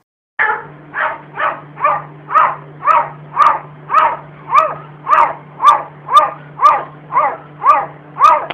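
A domestic cat giving short, rising-and-falling meow-like calls over and over, about two a second, with a steady low hum underneath. The calls start suddenly about half a second in.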